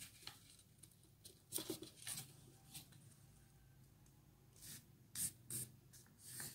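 A strip of paper being folded in half and creased by hand: faint, separate rustles and crinkles, more of them near the end.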